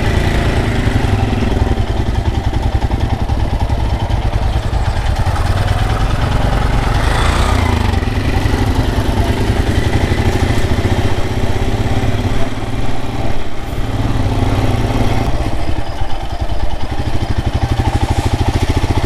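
Royal Enfield Himalayan's single-cylinder engine running steadily under way, its fast low firing pulses continuous, with a brief rise of higher-pitched noise about seven seconds in and the engine note easing off a few times later on.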